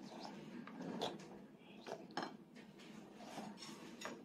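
A few light, spaced-out clicks and taps of fingers and bread pieces against a child's divided meal plate as the food is moved about on it.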